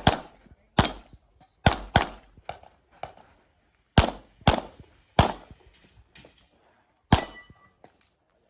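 Handgun shots fired at irregular spacing, some as quick pairs and some singly, about eight in all, with fainter pops in between. The shot near the end has a short ring after it.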